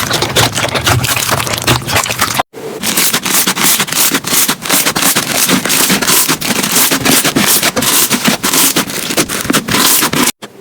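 Slime being squeezed and pressed by hand, giving dense, loud crackling with many sharp pops and clicks. It breaks off briefly about two and a half seconds in, then resumes, and stops just before the end.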